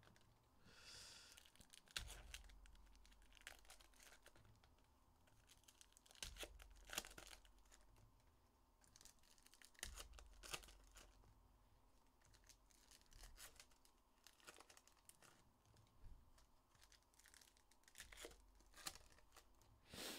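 Faint handling of 2023 Panini Illusions football trading cards: soft rustling and scattered light clicks as the cards are flipped, sorted and squared onto a stack.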